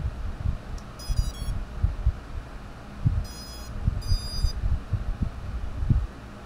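Micro FPV drone's Geprc 1102 brushless motors beeping the ESC power-up tones as its 2S LiPo is connected: a quick run of short high-pitched tones about a second in, then two longer beeps around three and four seconds in, the sign that the flight controller and ESCs have powered up. Dull handling bumps run underneath.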